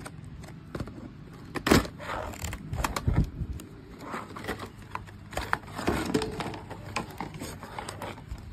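Clear plastic blister pack and cardboard backing being handled and opened: irregular crackles, rustles and sharp clicks, the loudest a little under two seconds in.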